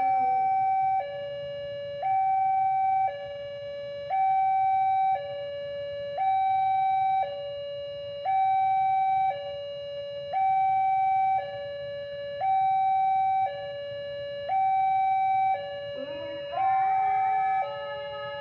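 Railway level-crossing warning alarm, an electronic two-tone signal alternating steadily between a higher and a lower tone, each held about a second, sounding while the barrier is down for an approaching train. About sixteen seconds in, another sound that rises in pitch joins it.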